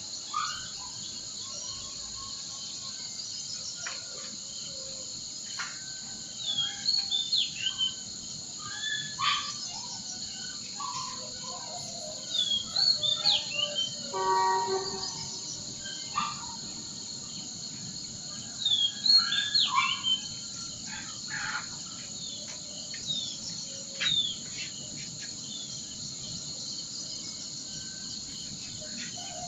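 Songbirds chirping in short clusters of quick rising and falling notes, a few seconds apart, over a steady high-pitched insect chorus.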